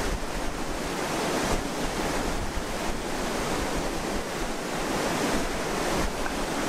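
Steady rush of a flowing mountain creek: an even, unbroken hiss of running water.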